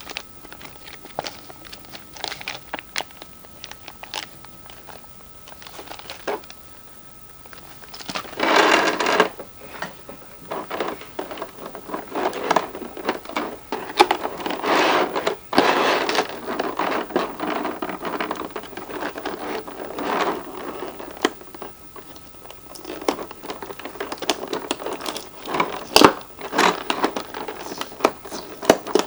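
Toy packaging being handled and opened: plastic and cardboard crinkling and rustling, with scattered clicks. It is sparse at first and turns into denser, louder rustling about eight seconds in.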